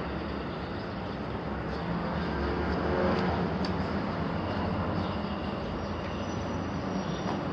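Steady low rumble of a passing vehicle, with a few faint clicks.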